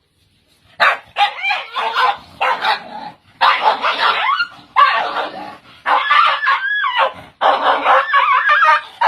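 Dog barking and yipping in a string of quick runs, about a second each, with a wavering, whining pitch, after a short silence at the start.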